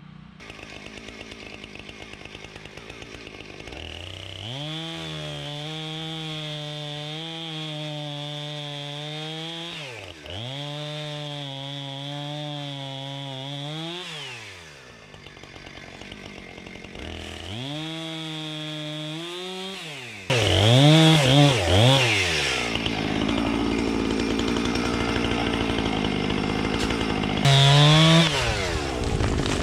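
Chainsaw engine revved to high speed and held, dropping back and climbing again several times. In the last third it is much louder and rougher, with one more high rev near the end.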